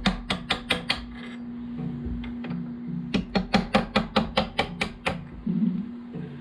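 Rapid sharp metallic taps, about five a second, in two runs: a hammer striking a punch to drive the pad retaining pins out of a motorcycle's Brembo brake caliper.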